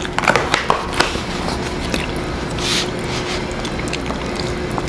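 Paperboard spaghetti box being opened and handled: a cluster of sharp crackling clicks in the first second and a short rustle a little past the middle, over a steady low hum.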